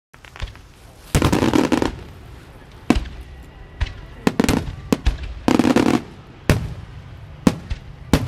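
Fireworks going off: single sharp bangs every second or so, and three bursts of dense crackling hiss, the longest about a second in.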